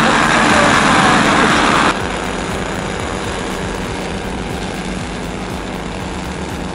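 The four O.S. 25 glow engines of a radio-controlled B-17 model running together, loud and close. About two seconds in the sound drops abruptly and goes on more distantly and steadily as the model taxis on grass.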